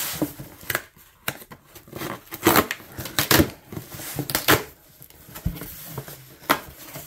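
Packing tape on a cardboard box being slit with a screwdriver and torn away, with the cardboard flaps ripping and rustling in a run of irregular scrapes and tears, loudest in the middle.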